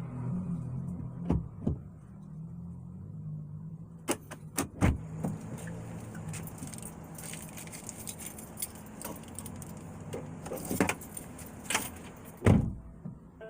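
A run of sharp clicks and metallic rattles, like keys jangling, starting about four seconds in and continuing in scattered bursts, over a low steady hum.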